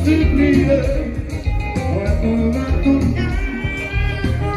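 Loud dance music with guitar over a steady bass beat.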